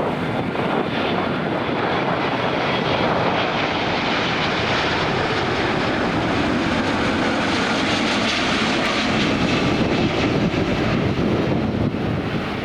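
Jet airliner landing, its engines a loud, dense rumble with a faint high whine that builds through the middle and eases near the end as it passes.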